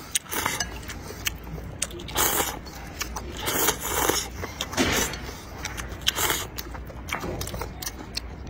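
Rice noodles slurped from a bowl of spicy broth in several noisy slurps about a second apart, with small clicks between them.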